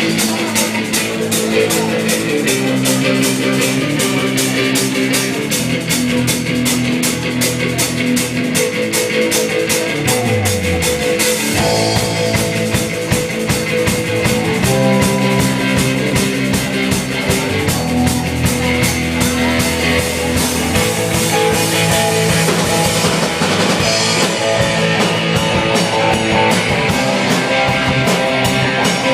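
Rock music: a band with a drum kit keeping a fast, even beat under guitar chords, with a downward slide in the low notes about ten seconds in.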